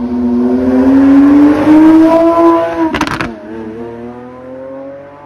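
Lamborghini Aventador's V12 accelerating hard past and away, its note rising steadily. About three seconds in a sharp crack comes at the upshift, and the note drops and climbs again, fading as the car pulls away.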